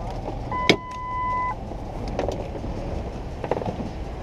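In a pickup cab, a sharp click and a steady electronic beep lasting about a second, then a few knocks and clatters as the driver's door is opened, over a steady low rumble.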